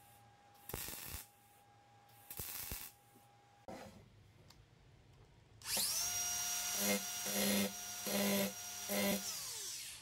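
Two short scraping strokes, then a DeWalt cordless angle grinder spins up to a steady high whine about halfway through. It bites into a steel flat bar in four short loud bursts, then winds down in pitch near the end.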